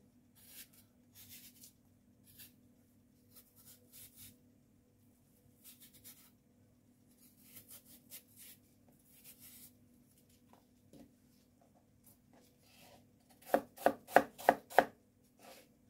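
Kitchen knife cutting a peeled apple on a plastic cutting board: faint scraping cuts through the flesh, then five quick, sharp knocks of the blade on the board near the end.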